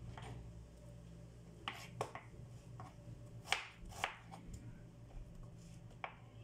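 Kitchen knife slicing through chayote onto a cutting board: five sharp knocks of the blade hitting the board, the first four in pairs about half a second apart and a last one near the end.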